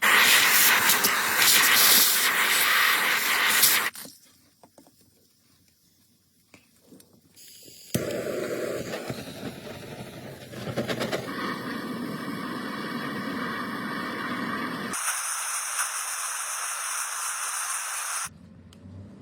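Loud, steady hiss for about four seconds, then a quiet gap, then several seconds of rougher working noise and another hiss that cuts off near the end.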